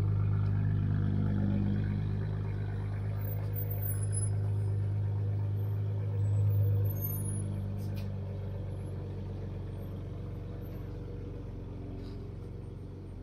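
Modified exhaust of a V6 Chrysler 300 running with a steady low drone as the car rolls away at low speed. The drone swells briefly about six seconds in, then fades gradually as the car moves off.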